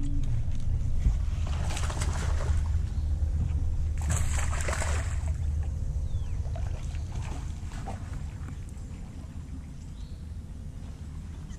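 Water splashing twice, about two and four seconds in, as a hooked bass thrashes at the surface while it is fought to the boat, over a steady low rumble.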